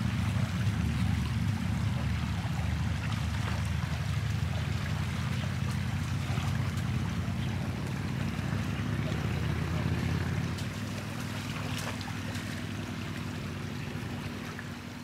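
Shallow river flowing over a gravel bed, under a steady low wind rumble on the microphone, fading down over the last few seconds.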